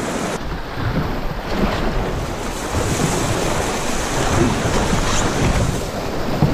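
Rushing whitewater of a river rapid as a kayak runs down a drop, a steady loud wash of water with splashing.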